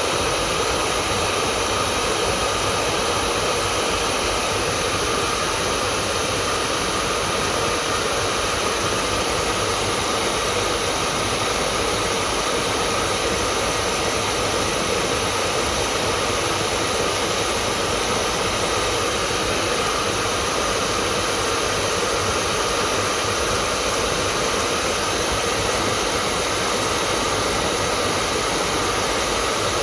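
Hair dryer running steadily, a constant fan-and-air rush with a faint hum and no change in speed.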